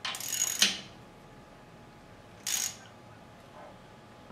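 Quarter-inch socket ratchet clicking in two short runs, one at the start and one about two and a half seconds in, as the exhaust header bolt is snugged down against its copper crush gasket.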